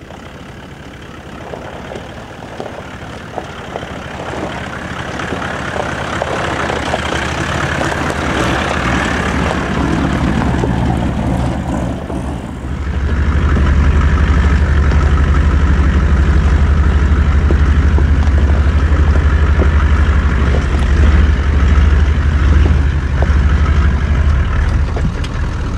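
Toyota LandCruiser 76 series V8 turbo-diesel 4WD driving on a loose gravel track. Its engine and tyre noise grow louder over the first ten seconds. About halfway through, the sound changes suddenly to a steady, heavy engine drone heard from the side of the moving vehicle.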